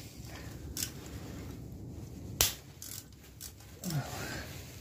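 Sharp metal clicks from a wrench working the cover bolts of a Lifan 150cc ATV engine as they are loosened: a faint one under a second in and a louder one a little past halfway, with a short low falling sound near the end.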